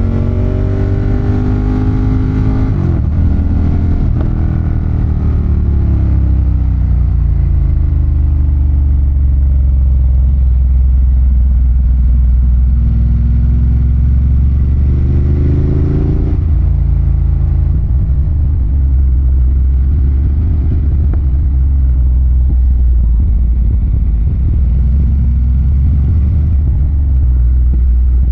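Ducati Monster 1200's 1198 cc L-twin engine pulling through the gears on a ride, with a heavy low rumble throughout. The engine note climbs over the first few seconds and then falls away. It later rises steadily again to a peak about sixteen seconds in before dropping off sharply as the throttle is closed.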